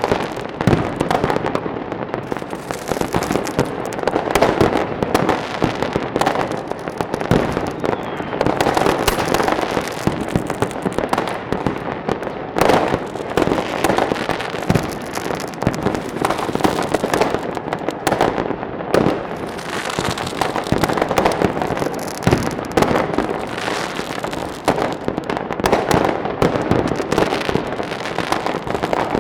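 Fireworks and firecrackers going off in a dense, continuous barrage of cracks and bangs, overlapping with no pauses.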